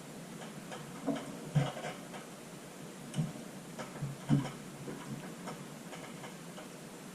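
A handful of light clicks and knocks at irregular times over a faint steady hiss.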